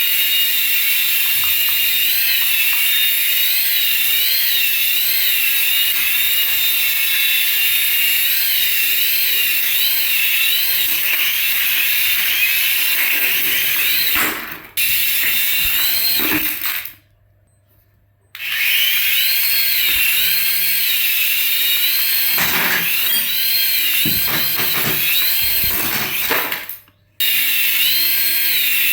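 Small electric motor of a toy RC vehicle running with a high whine whose pitch wavers up and down. It cuts out for about a second near the middle and again briefly near the end.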